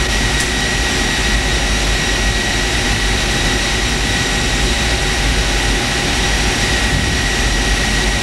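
Steady, loud machine roar with a constant high whine and a low rumble underneath: an aircraft generator running on the test rig, powering the damaged wire harness.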